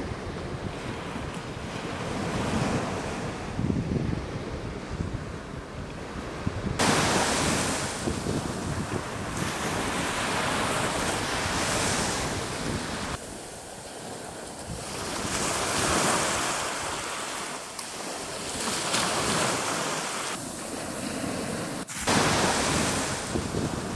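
Small sea waves breaking and washing up on a sandy beach, the surf swelling and ebbing, with wind rumbling on the microphone. The sound shifts abruptly a few times where shots are cut together.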